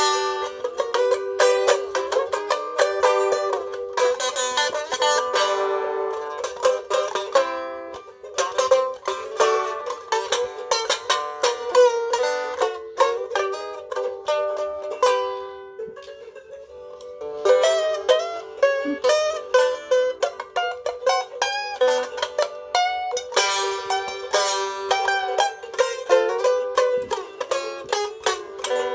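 Banjo picking: fast runs of plucked notes over a steady ringing note, thinning to a few soft notes about halfway through before the picking picks up again.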